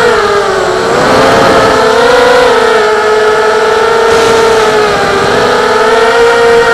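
Brushless motors of a 5-inch FPV quadcopter (2206 2100 KV motors spinning Gemfan 5045 propellers on 4S), heard from its onboard camera: a steady high whine that drops in pitch about half a second in and climbs back by about two seconds, with a smaller dip around five seconds, following the throttle.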